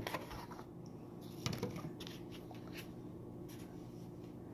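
Clear plastic takeout sushi containers being handled: a few light plastic clicks and crinkles, the plainest about a second and a half in, over a faint steady hum.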